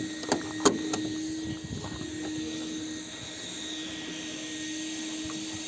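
Car bonnet being released and lifted, with a couple of short knocks in the first second, over a steady hum.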